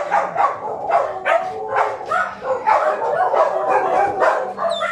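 A crowd of dogs barking and yipping at once in a dense, overlapping, continuous chorus.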